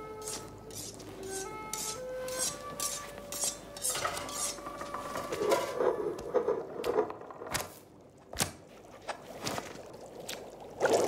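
Cartoon kitchen foley: scattered clinks, knocks and rubbing of kitchenware around a wooden cutting board and knife, with two sharp knocks about seven and a half and eight and a half seconds in. A few held music notes sound in the first three seconds.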